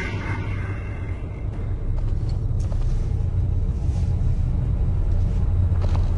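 Low, steady rumbling drone from a stick-figure Flash animation's soundtrack, getting somewhat louder about two seconds in.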